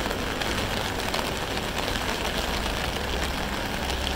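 A vehicle engine idling, a steady low rumble under an even wash of street noise.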